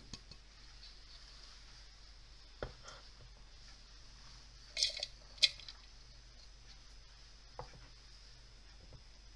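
Quiet room tone broken by a few light knocks and clicks of kitchenware on a plastic food-processor bowl as ingredients are added. Two sharp clicks about five seconds in are the loudest.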